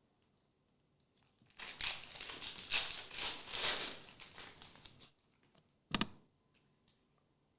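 Trading-card pack wrapper being torn open and crinkled for about three and a half seconds, followed by a single sharp knock about six seconds in.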